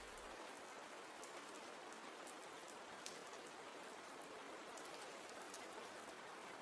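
Faint, soft, steady rain, with scattered light drop ticks.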